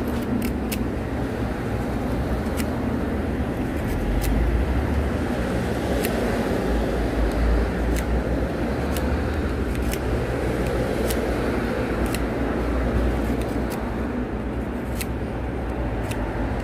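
Small craft-knife blade shaving a pale wooden stick, giving irregular sharp clicks as the blade cuts through the wood, about a dozen of them, over a steady low rumble.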